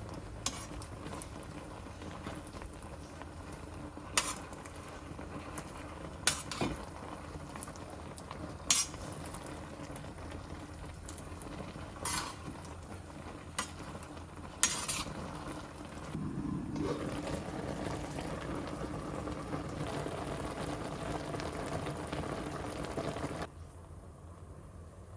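Stovetop cooking: food cooking in a pot with a steady hiss, and a utensil clinking against the cookware about seven times. About two-thirds through, a louder sizzling starts, then cuts off abruptly near the end.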